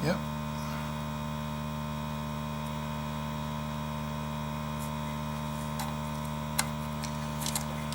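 Steady electrical mains hum with many evenly spaced overtones, with a few faint clicks near the end.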